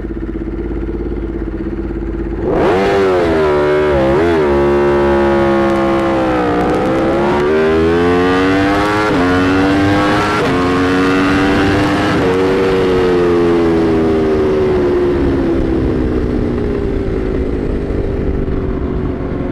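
Aprilia RSV4 Factory's V4 engine through an SC-Project CRT exhaust, held at steady revs on launch control, then launching about two and a half seconds in. The revs climb hard through several upshifts, each a sudden drop in pitch, and then the engine note slowly falls.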